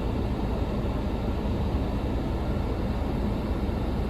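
A road-rail excavator's engine running, a steady low rumble.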